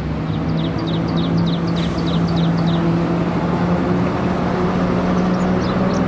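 Single-decker diesel bus engine running as the bus pulls away from a stop, a steady low hum over road noise that grows a little stronger midway. A bird chirps repeatedly during the first half.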